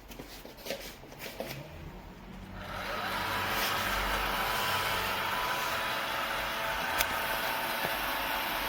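A few clicks and knocks, then the iRobot Roomba j7+ robot vacuum's motors start up, swell over about half a second, and run steadily with a faint whine, with one sharp click near the end.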